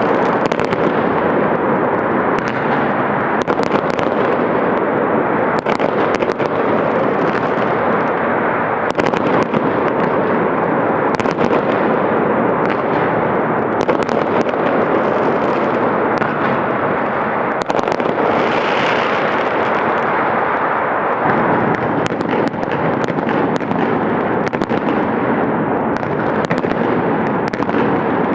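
Many fireworks and firecrackers going off nonstop: a dense, continuous crackle with loud sharp bangs standing out every second or so.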